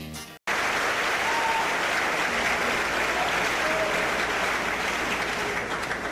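Concert audience applauding, starting abruptly about half a second in after a brief silent cut and thinning near the end, with a few short whistles over it.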